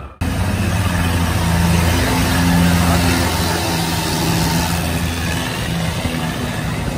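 Long-tail boat's engine running steadily as the boat passes close by, its long-shaft propeller churning up a spray of water.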